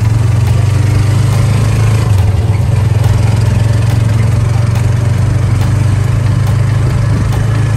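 Small motorcycle engine running steadily, a loud low drone that holds one pitch throughout.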